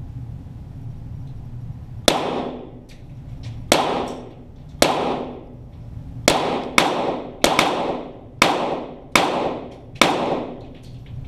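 .22 Walther GSP target pistol shots heard from down-range near the target: nine shots in about eight seconds at an uneven pace, each with a reverberant echo.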